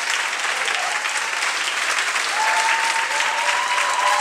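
Audience applauding steadily, with a few drawn-out cheering voices over the clapping from about two seconds in.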